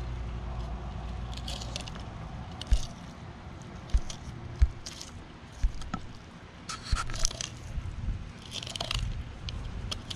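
Knife cutting and scraping along the backbone and rib bones of a golden tilefish while it is filleted on a cutting board: irregular crunching, squishing strokes with a few low knocks against the board.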